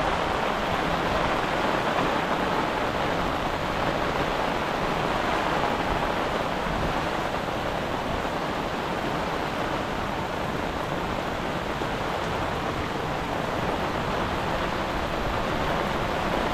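Muddy stormwater runoff rushing steadily as it overflows the sediment trap and breaches the road, starting to flow down it.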